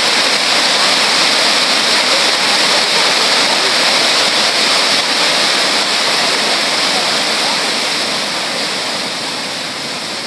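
Waterfall pouring over rocks close to the microphone: a loud, steady rush of falling water that drops a little in level near the end.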